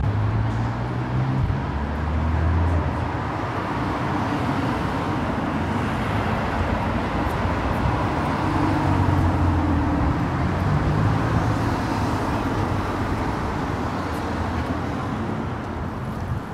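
Steady road traffic: cars driving along the bridge's roadway, a continuous rumble with engine hum rising and falling.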